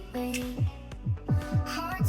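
Upbeat background music with a punchy kick drum pattern, a melody and bright hi-hats.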